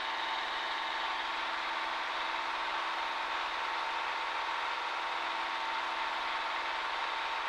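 Cessna 140A's four-cylinder piston engine and propeller droning steadily in flight, heard from inside the cockpit: an even, unchanging hum.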